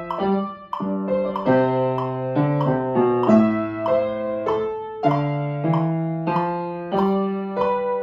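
Upright piano played from sheet music: a slow piece of struck notes and chords, changing about every half second, each ringing and fading before the next. There is a short break in the playing just after the start.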